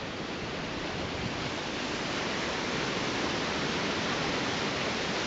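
Steady rushing of surf washing onto a sandy beach, slowly growing a little louder.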